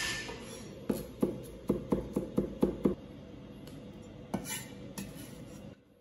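Cleaver chopping garlic on a plastic cutting board: a quick run of about eight sharp knocks, then a few scattered knocks and blade scrapes, cutting off shortly before the end.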